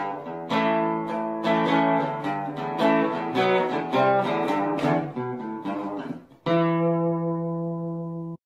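Background music on guitar: a run of picked notes, ending on one strummed chord that rings for about two seconds and then cuts off suddenly.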